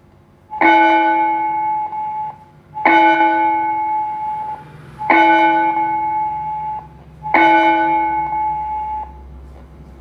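Four evenly spaced strokes of a recorded bell tone played by a Digicon DS-2025 digital school bell timer through its amplifier speaker. The strokes come about two and a quarter seconds apart, and each rings for about two seconds before cutting off.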